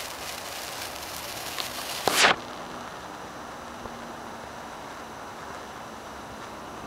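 Gold sparkler with a bamboo stick fizzing and crackling. About two seconds in there is a brief louder rush, after which the high crackling hiss stops as the sparkler burns out.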